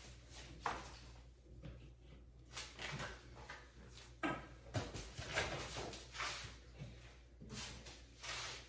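Handling noise from flat-pack furniture assembly: scattered light knocks, scrapes and rustles as the wooden panels and fittings are moved and pushed into place.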